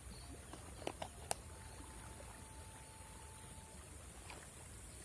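Quiet streamside ambience: a steady low rumble and a steady high hiss, with a few sharp clicks about a second in and a faint thin whistle-like tone for a couple of seconds after them.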